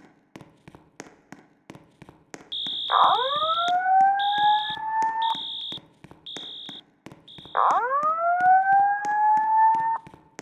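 Fire alarm system sounding a whoop tone: two long rising sweeps, each about two and a half seconds. High steady beeps pulse on and off over the first sweep, and a regular ticking about three times a second runs underneath.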